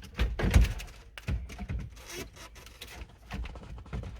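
Mercedes-Benz ML350 W166 head unit being pulled out of the dashboard: a few heavy knocks in the first second, then scattered clicks and rubbing as it is worked free.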